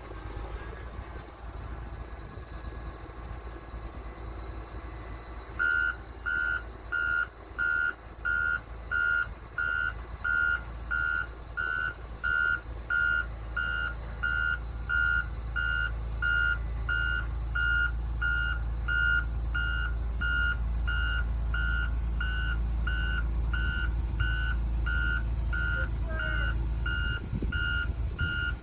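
Backup alarm of a reversing heavy vehicle beeping steadily at about two beeps a second, one pitch each, starting a few seconds in, over the low rumble of a diesel engine.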